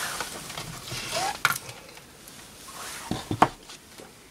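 Handling noises on a tabletop: a few clicks and knocks, the loudest about three seconds in, as a small metal drill-press vise is set down.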